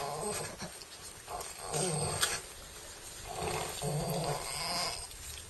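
A farrowing sow grunting: low grunts repeated several times, about a second apart, with a sharp click about two seconds in.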